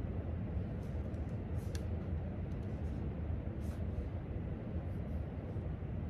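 Steady low hum of library room tone, like ventilation running, with faint scattered soft clicks and taps of study work at a desk.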